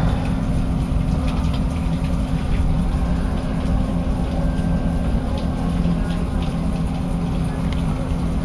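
Heavy rain pouring steadily, with a constant low rumble under it.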